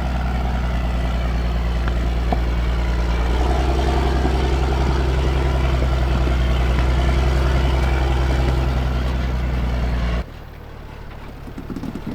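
Heavy Cummins diesel engine of a Ram 5500 wrecker, running steadily and loudly with a low drone as the truck crawls over rough off-road ground. About ten seconds in, the drone cuts off abruptly into quieter, rougher low rumbling.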